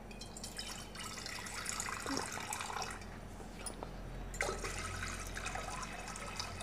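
Water pouring from a metal vessel into an empty pressure cooker, splashing on the pot's bottom. The pour eases about three seconds in and picks up again a little later.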